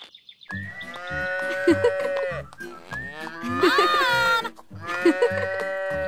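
Cow mooing three times in long, drawn-out calls, the middle one bending in pitch.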